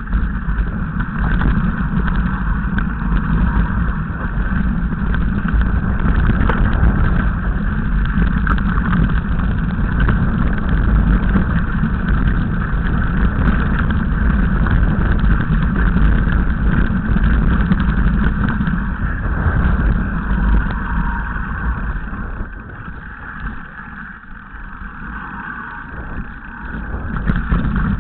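Mountain bike descending a rocky trail: wind buffeting the camera microphone over a constant rattle and clatter of the bike and tyres on loose stones. It eases for a few seconds about three-quarters of the way through, then picks up again.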